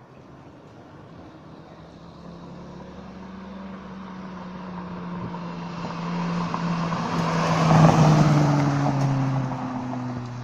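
Mitsubishi Lancer with an HKS Hi-Power aftermarket exhaust driving past. The steady engine note grows louder for about eight seconds, peaks, then drops in pitch and fades as the car moves away.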